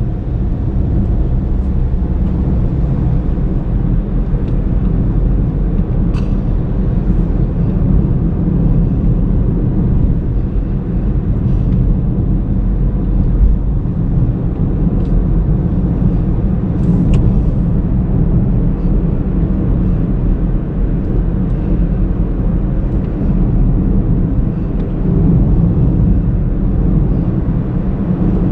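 A 2019 Honda Brio hatchback with CVT driving on the road, giving a steady low rumble of engine and road noise. A few faint clicks are scattered through it.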